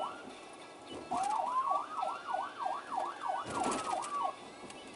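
Police car siren in a fast yelp of about three up-and-down sweeps a second, over a slower tone that rises and then falls. It starts about a second in and breaks off shortly before the end.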